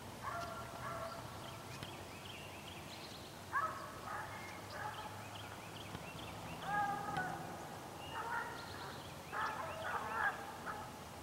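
A pack of deer hounds baying on a running deer, several voices overlapping in about five bouts of drawn-out bawling notes.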